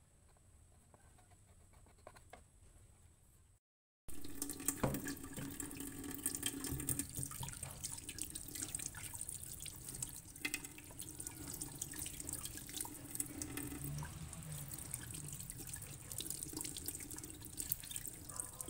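Tap water running in a thin stream and splashing onto hands and a plate in a stainless-steel sink as raw shrimp are rinsed. It starts suddenly about four seconds in, after a few faint seconds, and keeps up a steady splashing with small irregular spatters.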